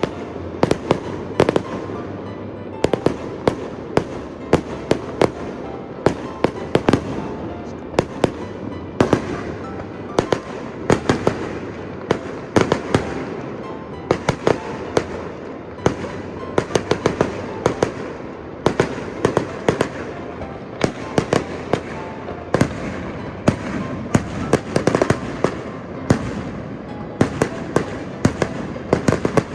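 Aerial fireworks show: shells bursting in a rapid, continuous barrage, with sharp bangs often several times a second over a constant din between them.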